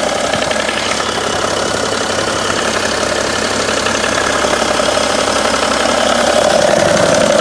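BMW 335d twin-turbo straight-six diesel idling hot, with a slight intermittent clicking from the front of the engine near the crankshaft damper pulley, heard in spells of about two seconds. The clicking shows only with the engine warm at idle, and its cause is unknown to the owner.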